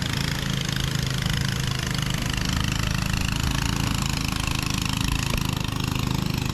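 An engine running steadily, a low pulsing drone that holds the same pitch throughout.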